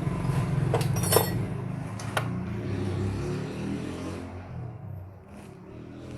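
Metal engine parts clinking sharply a few times, about one and two seconds in, while being fitted, over a low, steady mechanical drone that fades away after about four seconds.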